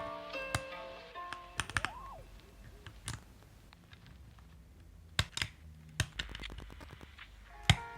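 Keystrokes on a MelGeek Mojo75 gasket-mount aluminium mechanical keyboard fitted with lubed switches: scattered single clacks, then a quick run of many keystrokes about six seconds in. Background music fades out in the first second and returns near the end.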